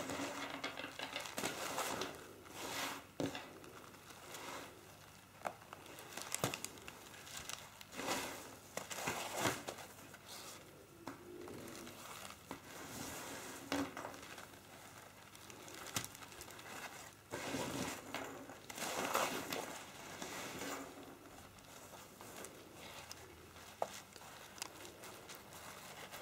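Cotton rope being wound by hand around a wreath base padded with crumpled paper under fabric: irregular rustling and crinkling, with occasional light clicks.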